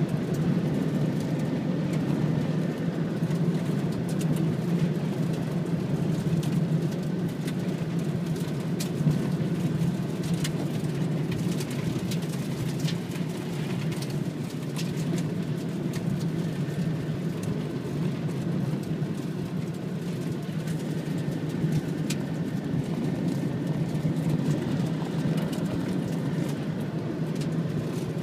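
Vehicle driving on a dirt road, heard from inside the cab: a steady rumble of engine and tyres on dirt, with scattered light clicks.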